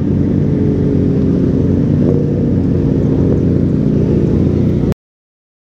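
Yamaha XJ6 motorcycle's inline-four engine running steadily at low revs in slow traffic, with a slight rise in pitch about two seconds in. The sound cuts off abruptly to silence about five seconds in.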